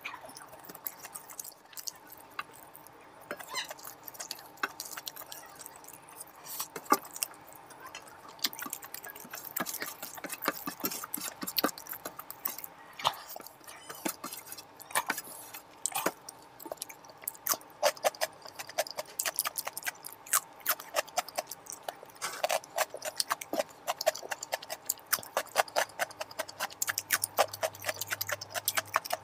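Close-miked eating by hand: chewing and wet mouth clicks, with fingers scraping khichuri off a steel plate. It is a run of quick sharp clicks and smacks that grows denser about a third of the way in.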